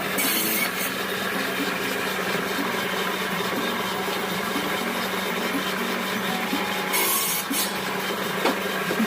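A power woodworking tool runs steadily with a constant motor hum while it cuts or shapes wood. The cutting sound sharpens briefly at the start and again about seven seconds in.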